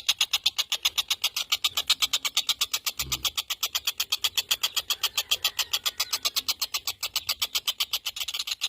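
Tengkek buto kingfisher calling in a fast, even, unbroken rattling trill of about a dozen notes a second. There is a brief low thump about three seconds in.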